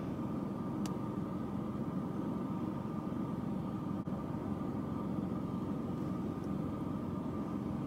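Car engine idling, a steady low hum heard from inside the cabin, with a faint click about a second in.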